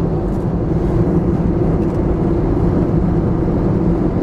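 Steady cabin noise of an Airbus A321neo in flight: an even rush of airflow with a constant low engine drone.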